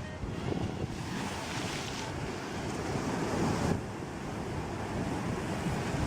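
Sea waves breaking and washing ashore, swelling twice, with wind buffeting the microphone.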